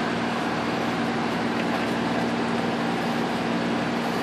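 Sailboat's engine running steadily while the boat motors under way, a constant hum over a rushing noise.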